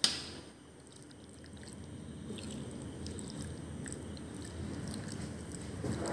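A spoon stirring raw chicken pieces in a wet spice marinade in a bowl: soft squishing and scraping that builds after the first second and a half. It opens with a sharp click.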